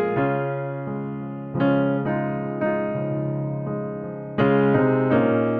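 Background music: slow, soft piano, with a new chord struck every second or two and left to ring and fade.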